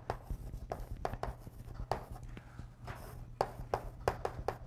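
Chalk writing on a chalkboard: a quick, irregular series of taps and short scratches as letters are stroked out, over a steady low room hum.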